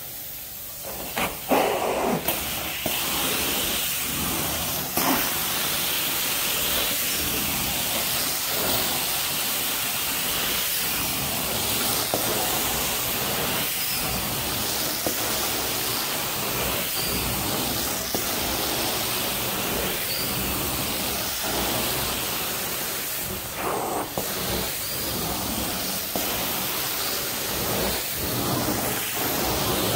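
Carpet extraction wand running: a steady hiss of spray and vacuum suction that starts about a second in, broken by many short surges as the wand is worked over the carpet.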